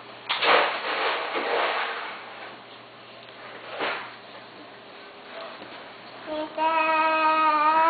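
Rustling and crinkling as things are pulled out of a child's Easter basket, with a brief rustle about four seconds in. Near the end a long, steady high tone is held, then wavers.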